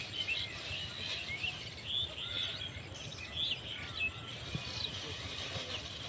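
Small birds chirping and twittering: many short, quick calls, high-pitched, over a low steady background noise.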